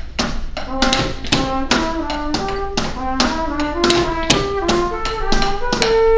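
A drum kit and a trumpet playing together: a steady run of drum hits under a trumpet line of held notes that step up and down.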